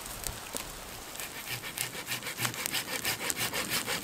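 Campfire of dry twigs and lichen tinder catching and crackling, the snaps coming thicker and louder from about a second in.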